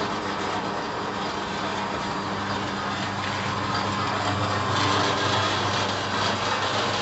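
Electric dough sheeter running: steady mechanical noise with a low motor hum, a little louder about five seconds in.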